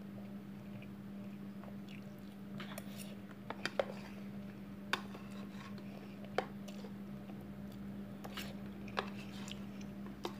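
Faint chewing of Indomie goreng fried instant noodles, with scattered light clicks of a fork against a plastic tub, over a steady low hum.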